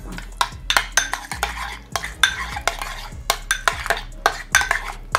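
Spoon stirring a thick mayonnaise-based sriracha sauce in a bowl: a quick, irregular run of clinks and scrapes against the side of the bowl.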